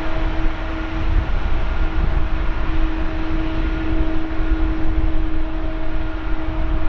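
Boeing 777-200ER airliner's jet engines running as it rolls out along the runway after landing: a steady low rumble with a steady humming tone over it.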